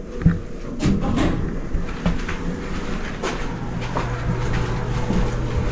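Irregular footsteps and small knocks from someone walking into a lift car, over a steady machine hum. A steady low hum joins about halfway through, once inside the lift.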